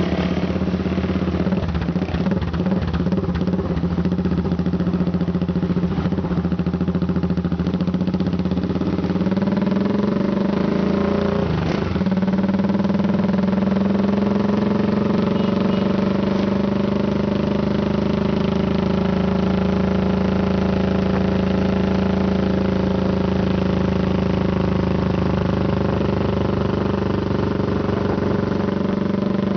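Motorcycle engines of a group ride pulling away and passing during the first twelve seconds. From about twelve seconds in, a single engine drones steadily at constant speed, heard from a vehicle moving behind the group.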